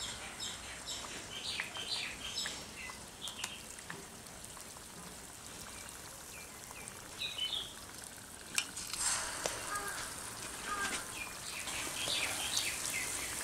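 Batter-coated green pea cutlets deep-frying in hot oil in a steel pan: a steady sizzle with scattered crackles. It swells louder about nine seconds in, as another cutlet goes into the oil.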